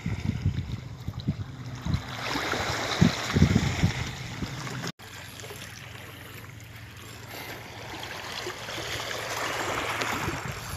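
Wind buffeting the phone microphone over the wash of small waves on a rocky shoreline. After a cut about five seconds in, the steady wash and lapping of shallow water over the rocks, growing louder toward the end.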